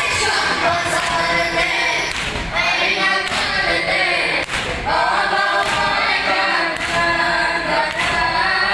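A group of voices chanting a noha, a Shia mourning lament, in unison without instruments, amplified through microphones. Dull thumps of hands beating chests (sinazani) recur beneath the singing.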